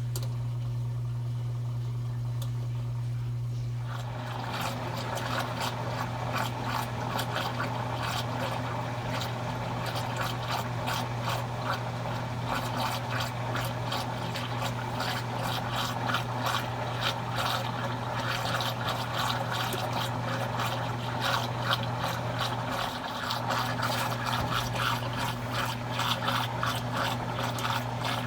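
Consul Cargo 8 kg washing machine running with a steady low hum; about four seconds in, water starts rushing and splashing in the machine and keeps going.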